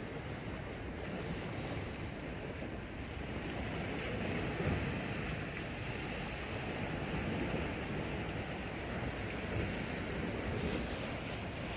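Steady wash of sea surf with wind, the wind buffeting the microphone.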